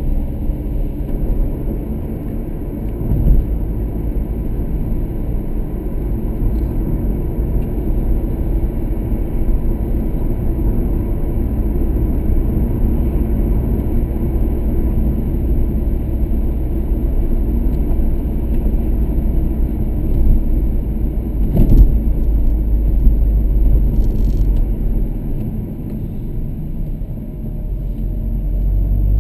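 Car driving on a wet road, heard from inside the cabin: a steady rumble of engine and tyres on the wet surface, with a single thump about two-thirds of the way through.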